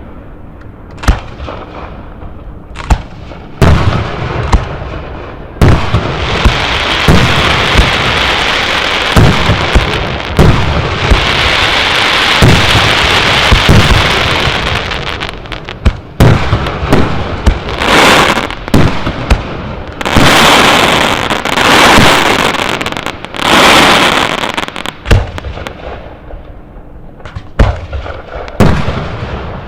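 Aerial firework shells of 75–150 mm bursting in a display: repeated sharp booms, with long stretches of dense crackling noise from about six to fifteen seconds in and again around eighteen to twenty-four seconds in, thinning to single bangs near the end.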